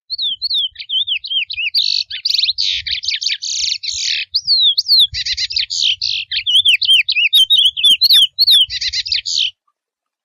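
Male chestnut-bellied seed-finch (curió) singing a long wild 'mateiro'-type song: quick whistled notes that swoop up and down, mixed with buzzy, rattling phrases. The song cuts off suddenly near the end.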